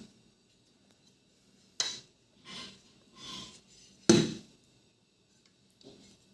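Hard metal parts being handled: a sharp clink, two soft scrapes, then a louder knock, with quiet in between.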